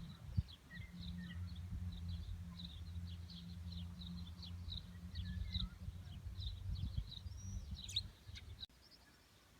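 Small birds chirping, many short high calls several a second, over a steady low rumble. The rumble cuts off suddenly near the end, leaving only faint chirps.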